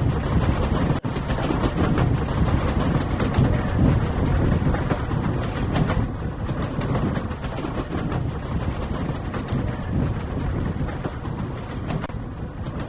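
Train running on the rails: a steady, loud rumble of wheels and carriages, with a momentary cut-out about a second in.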